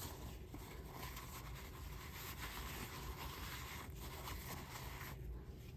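Cloth wiping and rubbing inside the plastic motor base of a kitchen blender, around the drive coupling; faint.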